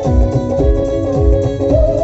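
Instrumental Punjabi bhangra music from a live band played loud through PA speakers: a heavy drum beat at about three hits a second under a plucked, twangy string melody.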